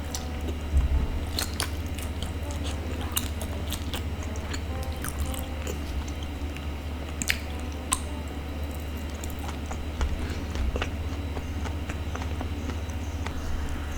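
Close-up chewing and biting of a sticky glutinous rice ball, with wet, smacking mouth clicks scattered throughout.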